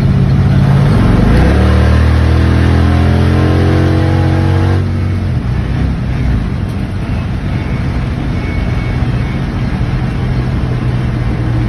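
1939 Ford truck's engine, heard from inside the cab, pulling hard under acceleration, its pitch rising for about four seconds. About five seconds in it drops back suddenly to a lower, steady drone as the truck cruises on.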